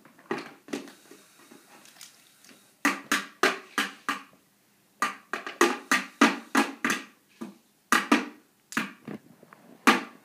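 Children playing a rough rhythm on toy instruments: a run of sharp hits and strums in uneven clusters, a few a second, with a quieter stretch from about one to nearly three seconds in.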